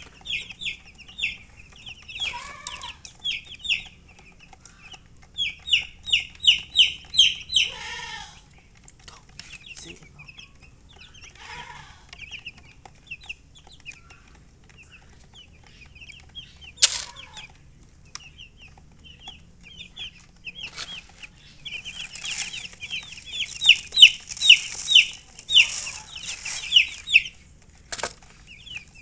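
Baby chicks peeping in quick runs of short, high, falling chirps, with a hen clucking a few times among them. Two sharp clicks about halfway through and near the end.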